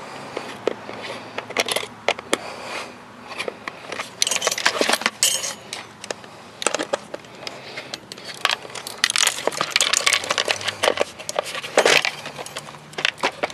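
A socket wrench and extension clicking and clinking against metal parts inside a plastic blender housing, as they are worked on the motor's mounting. The clicks come in clusters, busiest about four seconds in and again from about nine to twelve seconds.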